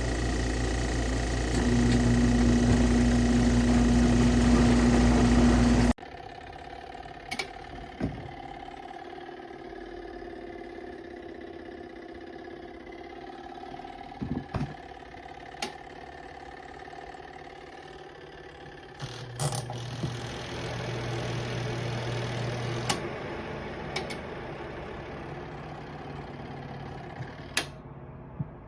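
Small electric motor of a compact twin-tub washing machine running with a loud, steady hum that steps up to a higher, stronger tone about two seconds in. About six seconds in it cuts off abruptly, leaving a quieter steady hum with scattered clicks and knocks.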